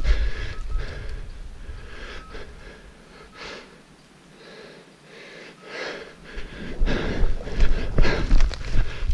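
A runner's heavy, rhythmic breathing after hard effort, with footfalls on the ground. The steps fade out briefly a few seconds in, leaving mostly the panting, then running footsteps pick up again near the end.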